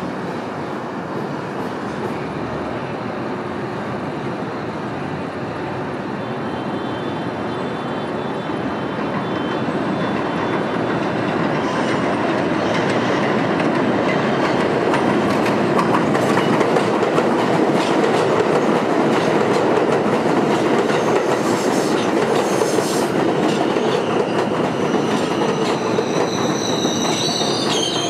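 New York City subway train of R160 cars running on the elevated track, its wheels clattering over the rail joints and growing louder through the first half. Near the end the wheels squeal with high, thin tones.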